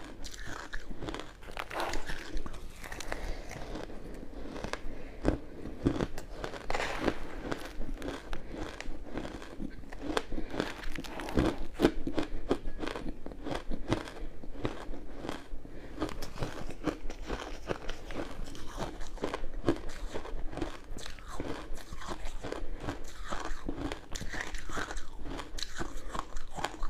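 Crushed ice being bitten and chewed, with dense, irregular crunching and crackling.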